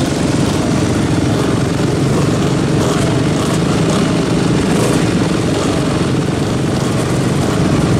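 Many dirt bike engines running together in a dense, steady din, from a packed group of motocross and enduro bikes with their riders aboard.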